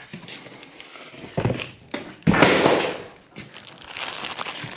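Cardboard packaging rustling and scraping, with a few sharp knocks, as a heavy router table top is shifted in its box. The loudest scrape comes just past the middle.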